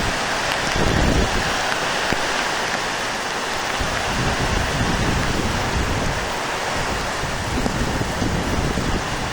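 Steady hiss of water, with wind gusting on the microphone as an uneven low rumble that comes and goes.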